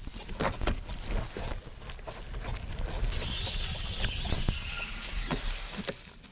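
Road bicycle ridden over a rough, overgrown dirt trail: irregular rattling and knocking as it goes over bumps, with a low rumble, and a steadier hiss through the middle.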